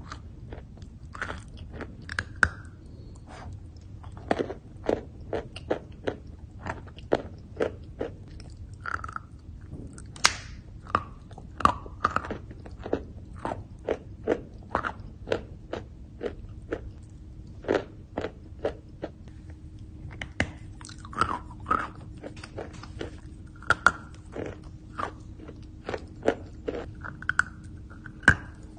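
A chunk of chalk crunching between the teeth as it is bitten and chewed close to the microphone: a continuous, irregular run of sharp crunches, two or three a second.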